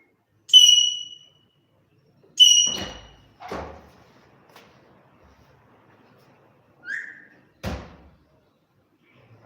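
A pet parrot giving two loud, short whistles about two seconds apart, each dropping slightly in pitch at its end, followed by a few sharp knocks and a brief rising chirp.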